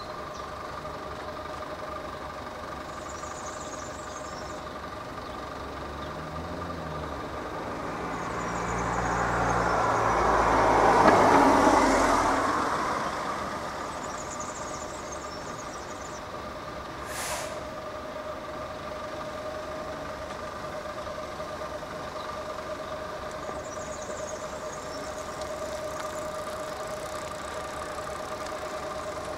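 A car drives up close by: engine and tyre noise swell to a peak in the first half and then fade as it slows. A brief hiss follows a few seconds later, and a steady two-pitched hum runs underneath.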